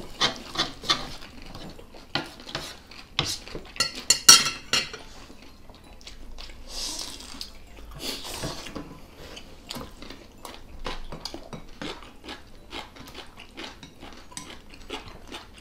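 Chopsticks and tongs clicking and scraping against a metal frying pan and bowls, with a dense run of sharp clicks about four seconds in. Short hissy stretches of black-bean noodles being slurped fall between the clicks.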